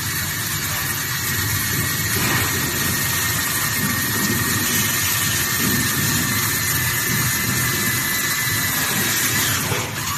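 Cordless drill/driver running steadily under load, driving a screw through a switch box into a metal table leg, with a steady high whine and hiss. It stops suddenly near the end.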